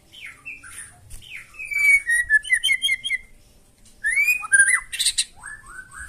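White-rumped shama singing: whistled phrases with a quick repeated run of notes about two seconds in, a short pause, then rising sweeps and a falling series of short notes near the end.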